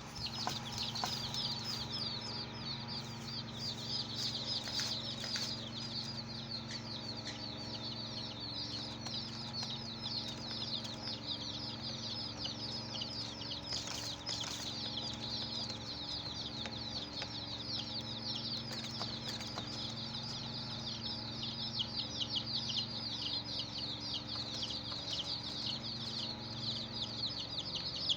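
A flock of baby chicks peeping continuously: a dense chorus of short, high, falling chirps, over a low steady hum.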